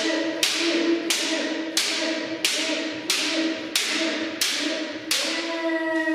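Bamboo shinai striking shinai in kendo kirikaeshi: eight sharp cracks about two-thirds of a second apart, stopping about five seconds in. Under them runs a long, held kiai shout that slides down in pitch near the end.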